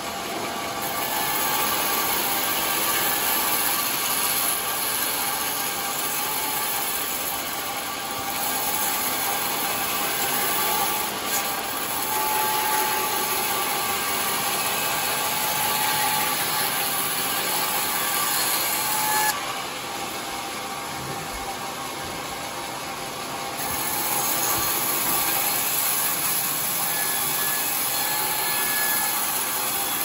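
Sawmill band saw cutting teak boards: a steady, loud sawing noise, with a quieter stretch of a few seconds a little past the middle.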